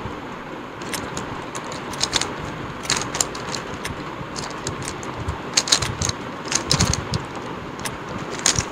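Plastic Rubik's Cube being turned fast during a speed solve: irregular runs of sharp clicks and clacks as the layers snap round.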